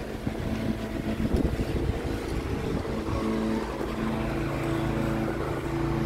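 Wind rumbling on the microphone, joined about three seconds in by a steady motor hum.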